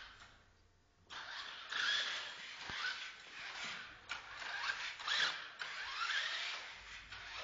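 A toy RC car's small electric drive motor and plastic gears whirring in stop-start spurts, with rising whines as the motor spins up, while the car drives itself under Arduino control. It is quiet for about the first second, then the whirring starts and breaks off and restarts a few times.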